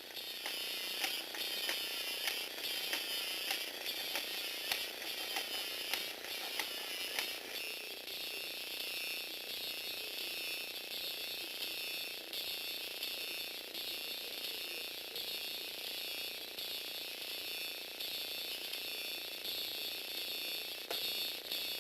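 Lego Technic walking robot running: a small electric motor whirring through plastic gears, with sharp clicking from the gear train and legs for the first seven seconds or so, then a steadier whir.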